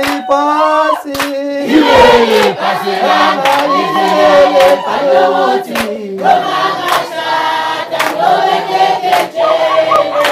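A group of voices singing a song together in chorus, led by a man singing into a microphone, with hand clapping throughout.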